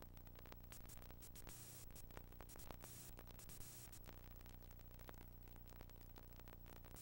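Near silence: faint hiss and a steady low hum with scattered small clicks, the background noise of a blank recording.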